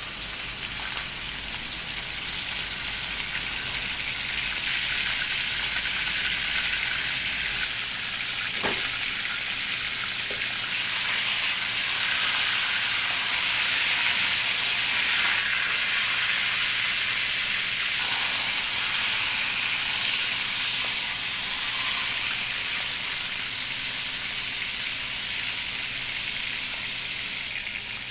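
A large piece of beef sirloin searing in hot oil in a stainless steel frying pan: a loud, steady sizzle. There is a single brief click about nine seconds in.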